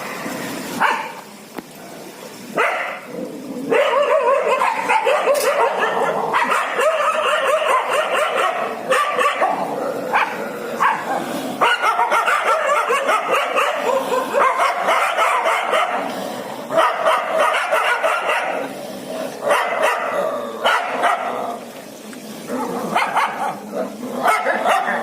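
A dog barking and yipping over and over, in long runs broken by short pauses.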